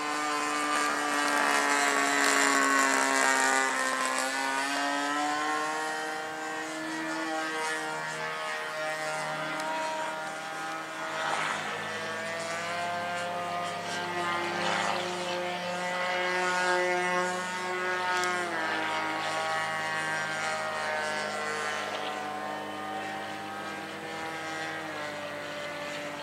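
Evo 15cc two-stroke gasoline engine and propeller of a radio-controlled aerobatic plane in flight, running throughout with its pitch sliding down and back up several times as the throttle and distance change. It is loudest in the first few seconds.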